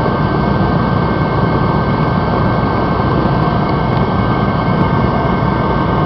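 Mr. Heater contractor-series forced-air torpedo heater running at full burn, heard close to its outlet: a loud, steady rush of fan and burner flame with a faint steady whine. The freshly rebuilt heater is working properly.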